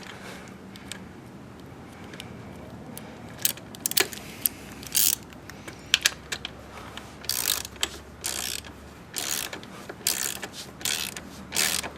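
Hand socket ratchet clicking in short, irregular bursts as a frame slider bolt on a motorcycle is worked in with a 10 mm Allen bit. The first few seconds are fairly quiet, then the bursts come more often through the second half.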